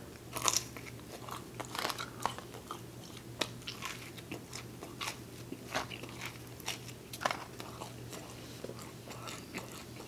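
Close-miked mouth sounds of a person biting into and chewing pizza crust: irregular crunches and wet clicks, thickest in the first couple of seconds and then thinning out.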